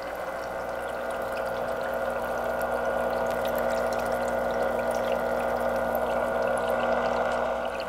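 Saltwater aquarium's circulating water rushing and splashing at the churned-up surface, over a steady pump hum. It grows louder over the first few seconds and eases near the end.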